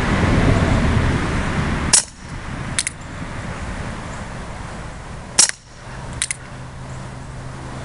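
Two shots from a Colt Single Action Army CO2 BB revolver, sharp cracks about three and a half seconds apart, each followed a moment later by a fainter click. A rushing noise like wind fills the first two seconds.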